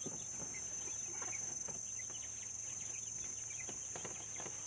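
Village chickens clucking from inside the coop, with scattered light clicks and rustles as the wire mesh is handled, over a steady high-pitched hiss.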